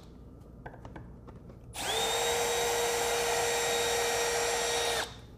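Cordless drill spinning up about two seconds in and running steadily for about three seconds, backing a torque-head screw out of a cured urethane foam form, then stopping abruptly.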